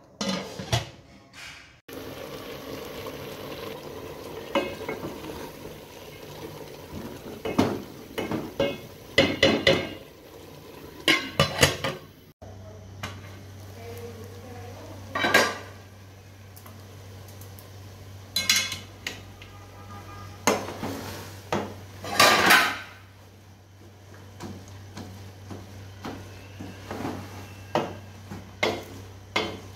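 A metal utensil clanks and scrapes against an aluminium cooking pot in irregular knocks while cooked chana dal and chicken are stirred and mashed. Near the start, the pot's aluminium lid clanks as it is handled.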